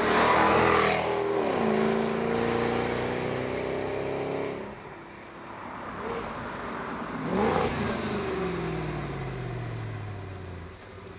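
Jaguar XKR's supercharged V8 through a custom free-flowing exhaust, driving past twice. The first pass is loud at the start and the note drops in pitch as the car goes by. The second swell peaks a few seconds later, then the note falls in pitch and fades.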